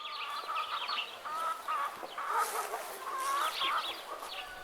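Chickens clucking, many short overlapping calls, with quick higher-pitched chirps among them.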